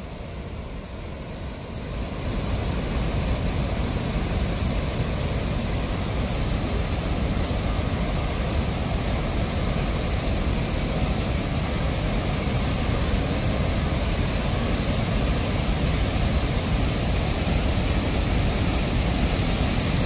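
Steady rushing of a 45-metre waterfall, which jumps up about two seconds in and then grows slowly louder.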